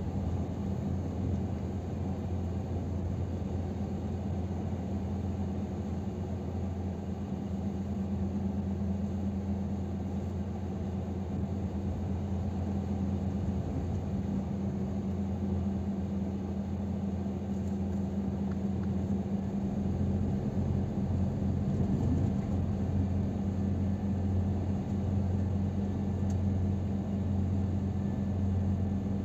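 Scania R500 truck's diesel engine running under way, heard inside the cab as a steady low drone with road noise. The low drone gets somewhat louder about two-thirds of the way through.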